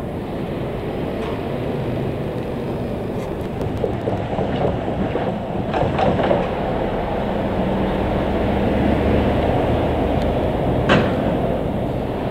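Diesel shunting locomotive of a works railway running with a steady low rumble, with several sharp metal clanks from the coil-loading yard, the loudest about eleven seconds in.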